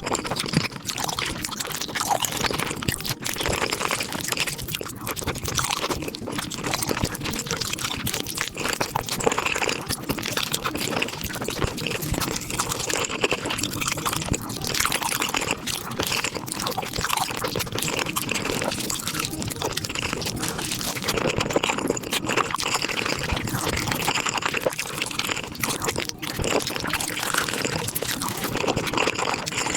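Close-miked eating of spicy beef feet, sped up five times: biting and chewing run together into a dense, continuous crackle of wet, crunchy mouth sounds.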